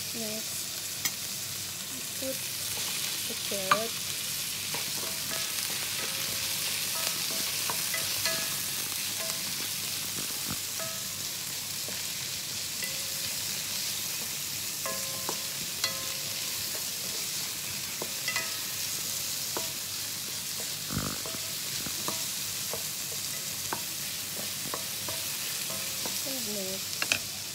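Diced meat and carrots sizzling in a nonstick pan, stirred with a wooden spatula that knocks and scrapes against the pan now and then, with a few sharper knocks.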